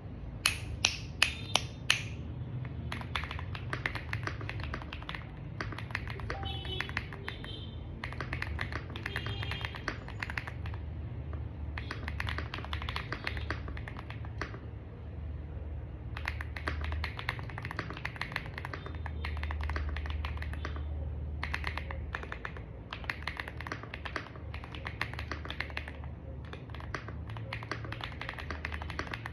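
Rainy75 mechanical keyboard with its stock switches being typed on in fast bursts of key clicks with short pauses between, with about five sharper, louder key strikes in the first two seconds. A steady low hum runs underneath.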